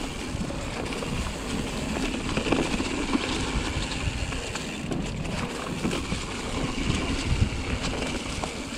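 Full-suspension Pivot Mach 5.5 mountain bike rolling along a dirt singletrack covered in fallen leaves: a steady tyre rumble with many small clatters and knocks as it goes over bumps, and wind buffeting the camera microphone.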